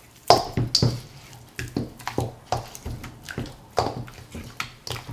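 A hand squelching lamb shanks through a thick yogurt and spice marinade in a stainless steel bowl: irregular wet squishes and slaps, about two to three a second, the loudest two within the first second.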